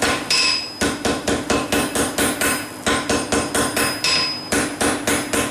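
Hand hammer striking white-hot steel cable on an anvil, a fast steady run of about four blows a second with the anvil ringing between them, forge welding the cable's end shut. The blows pause briefly twice, about half a second in and about four seconds in.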